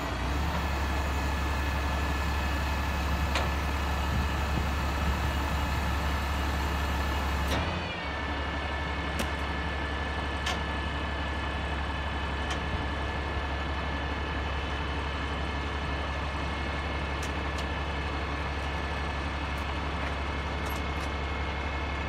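Diesel engine of a log truck with a knuckleboom loader running steadily, with a strong low rumble. The sound dips briefly about eight seconds in, then runs on, with a few faint clicks.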